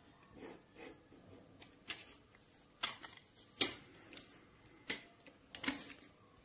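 A plastic ruler being shifted and set down on drawing paper while lines are drawn: a faint scattering of sharp taps and light scrapes, about half a dozen irregularly spaced, the loudest about three and a half seconds in.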